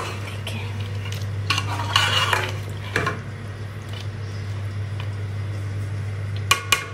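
A spoon stirring chicken qorma in a metal cooking pot, scraping and clinking against the pot while the curry sizzles in its separated oil, over a steady low hum. Near the end comes a quick run of sharp clicks.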